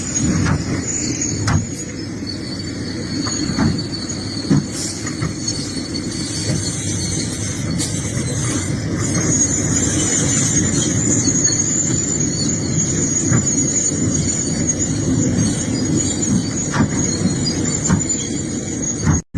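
Excavator working: the engine runs steadily under a high-pitched squeal, with a few brief knocks.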